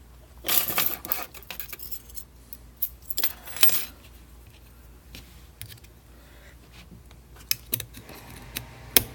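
Keys jangling and a metal padlock clinking as it is handled and locked back up, with scattered short metallic clicks and one sharp click near the end.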